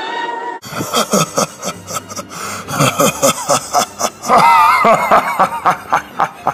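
Sinister cartoon laughter from the grinning mascot villains: a run of quick snickering chuckles that swells into a wavering cackle about four seconds in. It follows a brief bit of orchestral music that cuts off abruptly right at the start.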